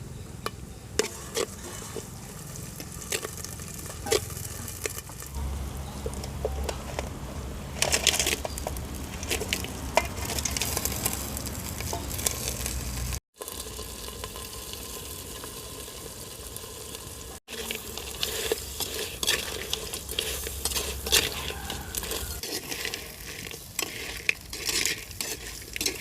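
Food sizzling in hot oil in a pan while a ladle stirs it, clicking and scraping against the pan many times. The sound cuts out briefly twice.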